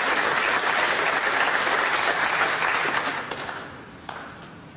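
Snooker arena audience applauding a good shot, the clapping dying away about three and a half seconds in.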